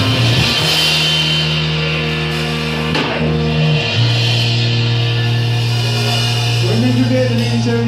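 Live rock band playing during a sound check: long held bass notes that change about half a second and four seconds in, under guitar, with a sharp drum hit at the start and another about three seconds in.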